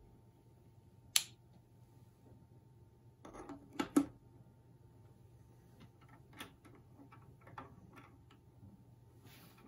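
A folding knife's blade snaps shut with one sharp click about a second in. Then the closed knife is set down into the fitted insert of a wooden presentation box with a short rustle and two knocks, followed by a few faint light ticks and taps.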